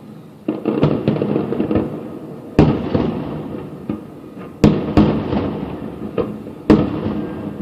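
Aerial fireworks bursting in a show: about five sharp bangs, roughly two seconds apart, each followed by a long rolling rumble and crackle.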